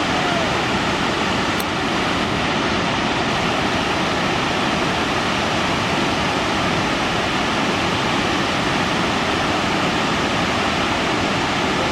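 Steady, unbroken rush of a large waterfall, the Middle McCloud Falls, pouring into a big pool.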